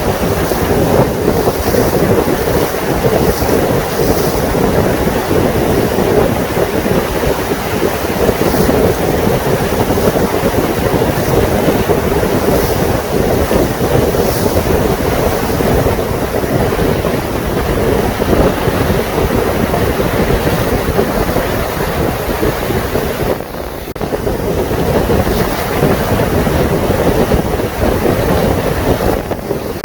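Wind buffeting the microphone over the steady rush of water along the hull of a moving lake boat, with a constant droning band underneath. The sound dips briefly near the end.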